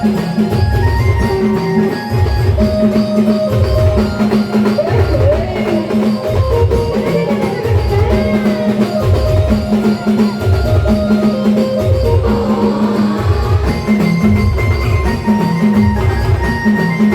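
Adivasi band music played loud: a steady, heavy drum beat with a deep bass hit roughly every 0.7 seconds, under a melody of held, bell-like tones.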